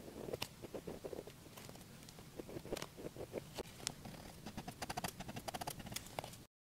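Black drawing pen scratching on paper in quick, short strokes, with small sharp ticks as the tip touches down; the sound cuts off suddenly near the end.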